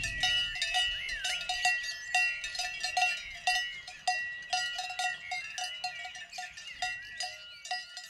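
Cowbells on grazing cattle clanking irregularly, several rings a second, with light bird chirps above them.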